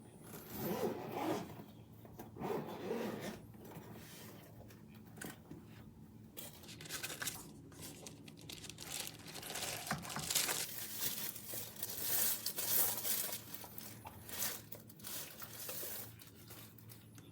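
Packaging being handled: irregular crinkling, rustling and tearing noises, busiest and loudest in the second half.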